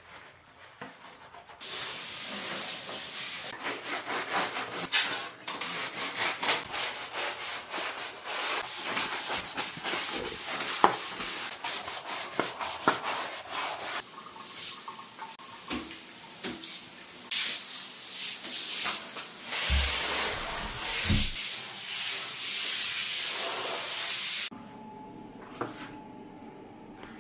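Water spraying hard and steadily, turned on about two seconds in and shut off abruptly near the end, with scrubbing strokes rubbing over it during the first half.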